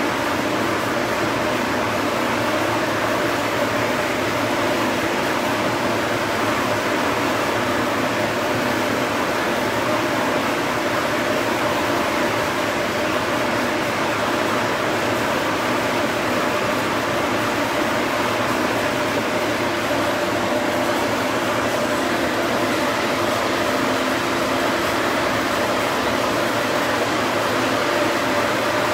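A large fan or blower running steadily: an even rushing whir with a steady hum in it, unchanged throughout.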